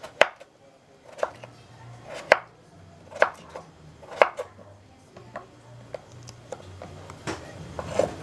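Kitchen knife cutting peeled raw potatoes into chunks on a wooden cutting board. Each cut ends in a sharp knock of the blade on the board, about one a second.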